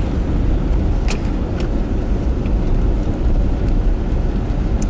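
A vehicle running and driving, a loud steady low rumble of engine and wheels, with a couple of short sharp clicks about a second in.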